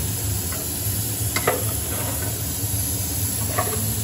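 Pots cooking on a gas stove: a steady hiss over a low rumble, with a couple of light clicks, one about a second and a half in and one near the end.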